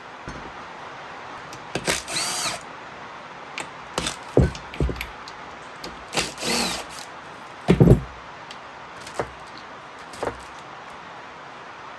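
Cordless impact wrench run in two short bursts, its motor whine rising and falling, as bolts come out of the ATV engine during teardown. Between and after them come several sharp metal clunks, the loudest a little after the second burst.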